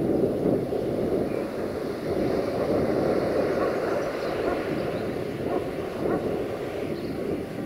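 Low, steady rumble of Siemens Desiro diesel multiple units running in a railway station, one of them rolling slowly in.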